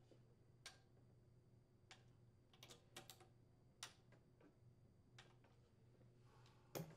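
Near silence broken by a few faint, separate clicks from a torque wrench and 10mm socket as the crankcase cover screws of a Briggs & Stratton small engine are tightened to torque.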